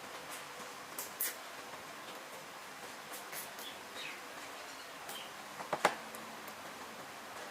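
Small clicks and taps of hands handling scooter wiring connectors, over a faint steady hiss, with a quick cluster of sharper clicks about six seconds in.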